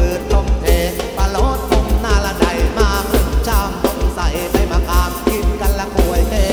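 Thai ramwong dance music from a live band over a loud PA: a fast, steady bass-drum beat under a wavering melodic line.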